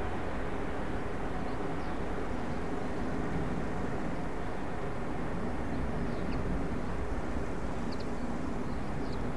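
Airbus A380 airliner on final approach, its four jet engines making a steady low rumble with a hum of held tones.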